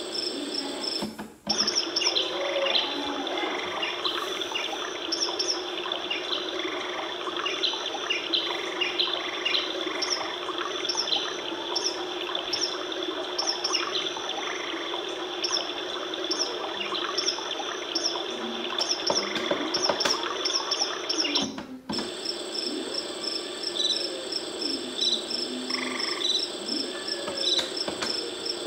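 Recorded nature sounds played by a Fisher-Price Sweet Little Lamb Cradle 'n Swing: birds chirping over a steady background. The sound breaks off briefly and changes to another track about a second in and again about 22 seconds in.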